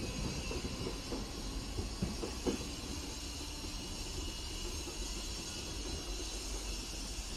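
Merseyrail electric train moving away, its low rumble fading, with a few wheel clicks over the rails in the first couple of seconds, over a steady hiss.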